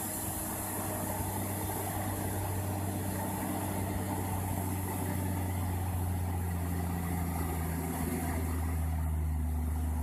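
A heavy vehicle's engine running steadily at low speed, its note shifting slightly near the end.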